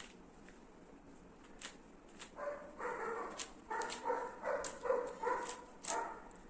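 A small dog barking in a quick series of short yaps, starting about two and a half seconds in, over scattered light plastic clicks.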